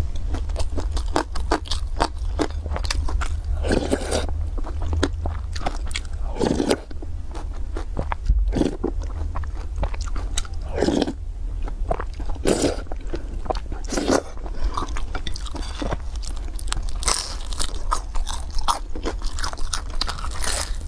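Close-miked eating sounds: crunching and chewing of a fried beef pie, with a few longer wet slurps of soup noodles and many small mouth clicks, over a steady low hum.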